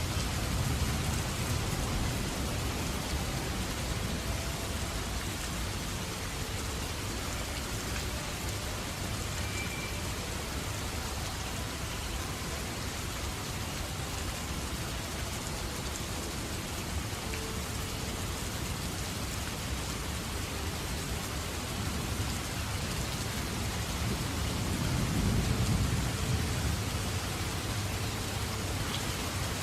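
Steady, heavy rain falling, with a low roll of thunder that swells and fades about three-quarters of the way through.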